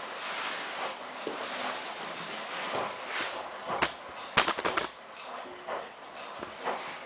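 Water trickling into a Miele PW6055 washing machine during its fill, running in slowly because the water pressure is low. About four seconds in, a quick run of sharp clicks is the loudest sound.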